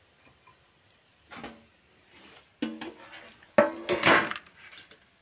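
A slotted steel frying spoon clanks against metal as fried pakoras are lifted out of the kadai's oil and tipped onto a plate. There is a faint knock, then two louder clanks with a brief ringing tone about a second apart, the second with a clattery scrape.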